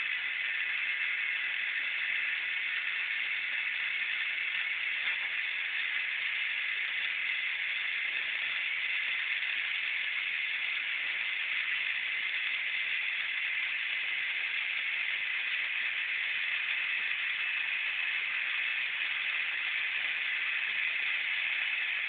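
A steady, even hiss with no separate sounds in it.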